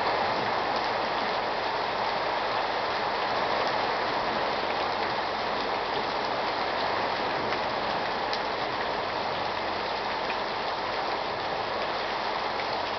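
Torrential rain falling steadily: an even, unbroken hiss of downpour.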